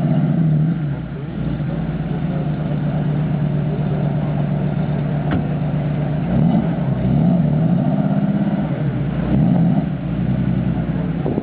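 Porsche 930 Turbo's air-cooled, turbocharged flat-six idling, with short revs of the throttle near the start, about two-thirds of the way through, and again shortly after.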